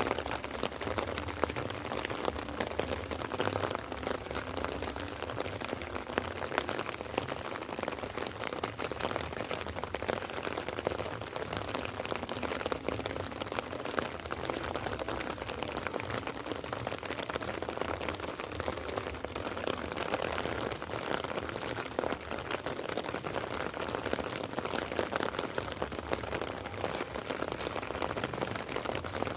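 Light rain falling steadily, a dense spatter of small drop ticks over an even hiss.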